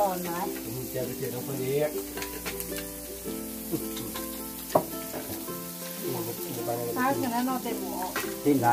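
Meat sizzling on a moo kratha grill-hotpot pan, a steady sizzle over background music with held notes, and one sharp click about five seconds in.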